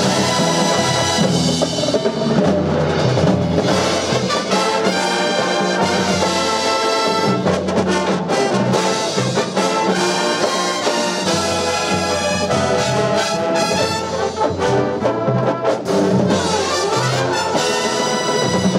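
A drum and bugle corps playing: a massed brass horn line sounding full, sustained chords that change every second or so, backed by marimbas and drums.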